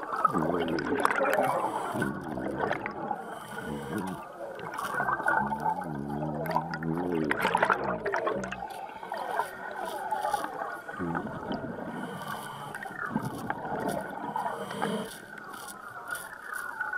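Muffled underwater gurgling and bubbling from a diver working among sea urchins, with a few wavering tones, the longest a little before the middle.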